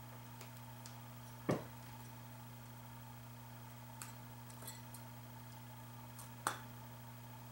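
Two sharp clicks of metal stand parts being handled during assembly, about five seconds apart, with a few faint ticks between, over a steady low hum.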